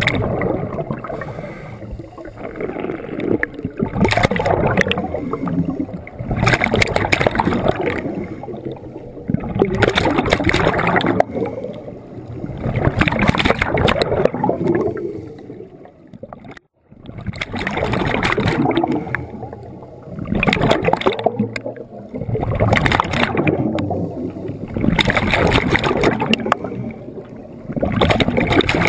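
Scuba regulator exhaust underwater: bursts of exhaled bubbles gurgling past the microphone about every two to three seconds, with quieter gaps of breathing in between. The sound cuts out for a moment a little past the middle.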